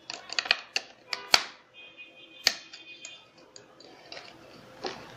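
Sharp plastic clicks and knocks from handling a wireless MPG pendant hand wheel's case, several in quick succession and then one more. A brief high steady tone sounds midway.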